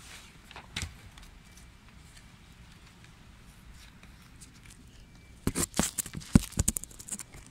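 Handling noise on a phone's microphone: quiet, with a faint steady hum and a few soft clicks, then a rapid run of loud knocks and rustles beginning about five and a half seconds in as the phone is moved.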